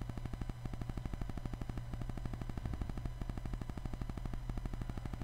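Countdown timer sound effect: a rapid, even ticking pulse over a low hum.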